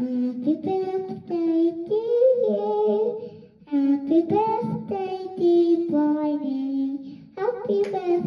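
A young girl singing a slow tune, holding long notes, with a short break about three and a half seconds in.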